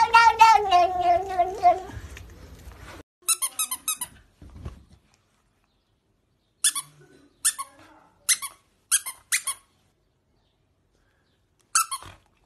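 A tabby cat meows: one long, wavering meow that falls in pitch and stops about two seconds in. Then come short, high squeaks: a quick fluttering run about three seconds in, five single squeaks over the following three seconds, and one more near the end.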